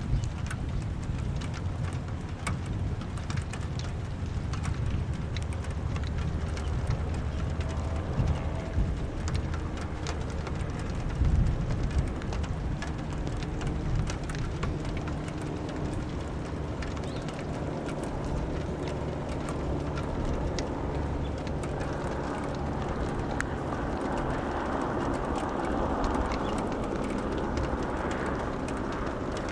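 Rain falling during a thunderstorm, with scattered sharp drop taps over a low rumble. A brighter rushing hiss swells in the last few seconds.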